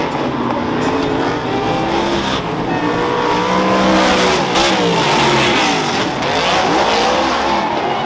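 Several speedway superstock race cars' V8 engines running hard on the track, revving up and down. In the second half the cars sweep close past, their engine notes rising and then falling as they go by.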